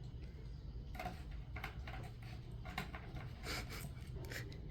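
Cats pawing and nosing at a new delivery, making short scratchy rustles and scrapes, several close together about a second in and again in the second half.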